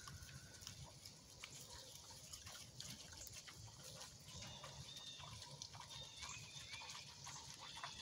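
Pigs rooting and chewing barley fodder, faint scattered crunches and snuffles.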